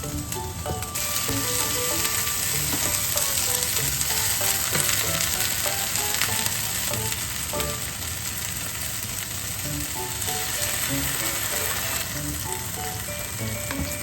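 Food frying in a hot pan: a steady sizzle that swells about a second in and eases a little near the end, over light background music.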